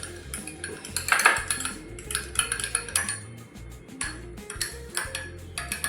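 A metal utensil beating egg, salt and milk in a bowl, clinking quickly and irregularly against the side of the bowl.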